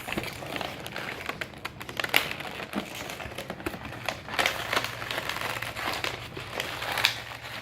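Plastic and cardboard toy packaging crinkling and rustling in hands as it is pulled at and opened, with irregular small clicks and crackles.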